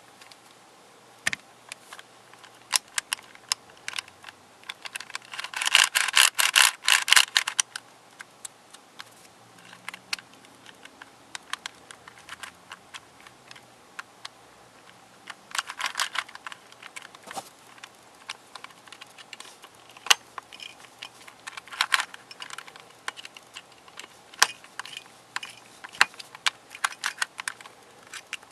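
Plastic pieces of a Square 2 twisty puzzle clicking and clattering as they are pressed and handled. There are scattered single clicks, with dense runs of clicks about six seconds in, around sixteen seconds and around twenty-two seconds.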